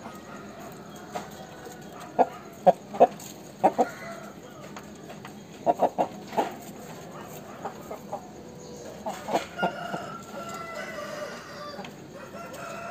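Chickens clucking in loud, short, sharp calls, several in quick runs of two or three, with fainter drawn-out calls near the end.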